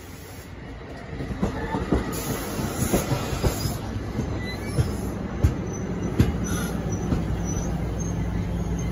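NJ Transit multilevel passenger cars rolling past close by, the sound building about a second in. The wheels knock over rail joints in an uneven rhythm, and a steady low drone joins about six seconds in.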